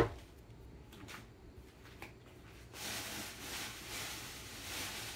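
A sharp knock, then a few light clicks; about three seconds in, water starts running steadily from a tap, as for washing leafy vegetables.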